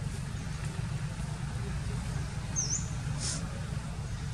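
A steady low rumble of outdoor background noise. One short, high chirp comes about two and a half seconds in, and a brief hiss follows just after.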